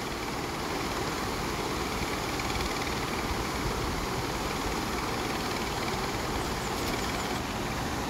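Steady rushing noise of a fast mountain river running over rocks.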